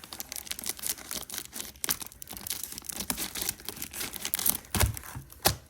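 Scissors cutting open packaging: a quick run of snips with the packaging crinkling and tearing, and a couple of louder clicks near the end.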